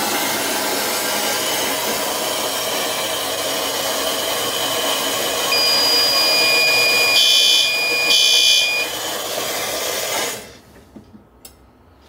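Water rushing out of an opened sprinkler test valve in a loud, steady hiss to trip the sprinkler flow switch; the flow is shut off about ten seconds in. Partway through, a steady electronic alarm tone sounds with two short beeps.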